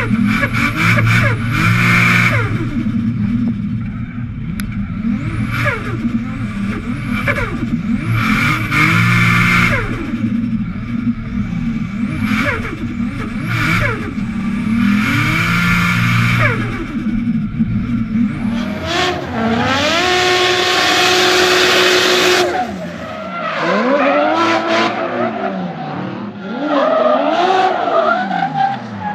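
Nissan Silvia S15's swapped-in 1JZ-GTE turbocharged straight-six revving up and down again and again while drifting, with strong bass when heard on board. About two-thirds of the way in it is heard from trackside instead, with a few seconds of tyre screech as the car slides, followed by more rising and falling revs.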